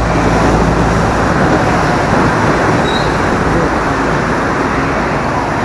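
Steady rush of road and traffic noise heard from a moving motorcycle, its engine running as it rides through city traffic.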